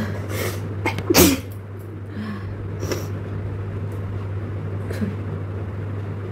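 A person sneezes, their nose tickled with a long blade of grass: a smaller sneeze at the start, then the loudest one about a second in, with fainter sounds after.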